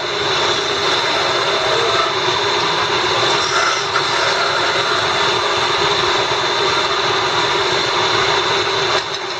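Wood lathe running steadily with a turning tool cutting a thin spindle, a continuous hum and whine under the scraping of the cut.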